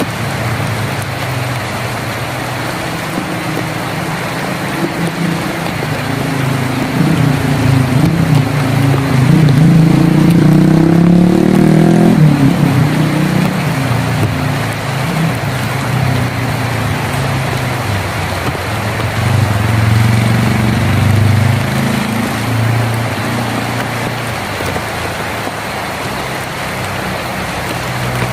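Steady rain on a tin roof, with a low rumble under it that swells to its loudest about ten seconds in, drops off suddenly, and swells again briefly later on.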